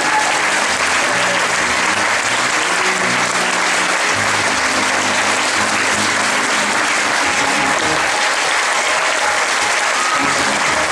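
Theatre audience applauding steadily, with band music playing underneath.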